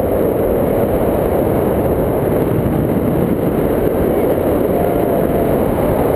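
Wind buffeting an action camera's microphone during a tandem paraglider flight: a loud, steady, low rush of air with no engine behind it.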